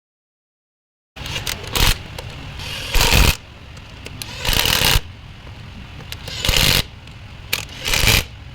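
A dead-silent edit for about a second, then five or so short, irregular bursts of scraping noise from work on a truck gearbox.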